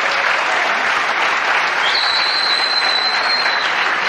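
Theatre audience applauding steadily. A thin, high whistle joins about two seconds in and holds for most of the rest.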